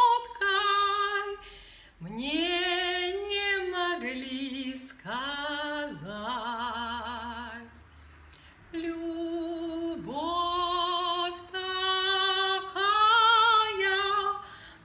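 A woman singing an operetta song in Russian in a trained classical voice, holding long notes with a wide vibrato, with a short pause a little past halfway.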